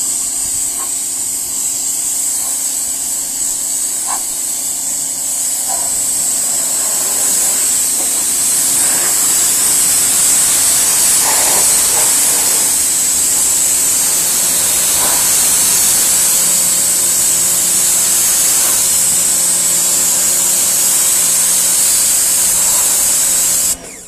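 Yard Force compact pressure washer spraying a high-pressure water jet: a loud, steady hiss with a faint low hum underneath, growing a little louder after several seconds and stopping abruptly near the end.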